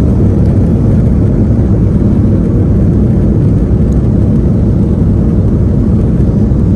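Steady low rumble of an Airbus A330-200's jet engines and airframe heard from inside the passenger cabin, during takeoff.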